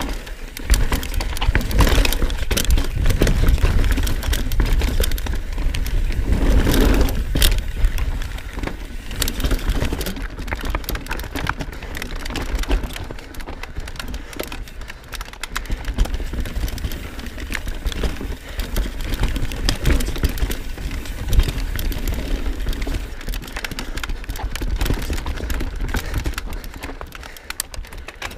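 Knolly Fugitive full-suspension mountain bike descending a dirt and rock trail: tyres rolling over roots and rock, with a dense stream of clicks, knocks and chain and frame rattle over a low buffeting rumble of wind on the mic. Loudest over the first ten seconds or so, a little quieter after.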